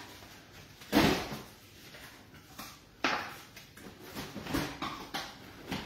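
Stacked plastic takeaway containers being pulled apart and handled, with two sharp clatters, about one and three seconds in, then lighter rustling as a hand rummages in a cardboard box of containers.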